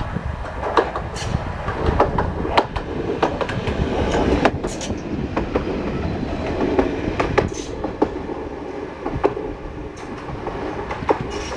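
Red articulated low-floor tram of the Man'yōsen line passing close by on its single track, with sharp clicks of its wheels over the rail joints. The running noise swells to its loudest about four to five seconds in, then fades as the tram moves away.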